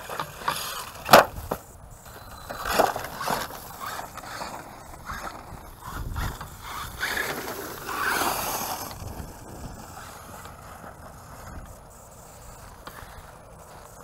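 Brushless 4x4 RC monster truck (Redcat Terremoto 10) driving over loose dirt and rubble close by. A sharp knock comes about a second in, then bursts of tyre crunching and scraping until about nine seconds in, and quieter rolling after that.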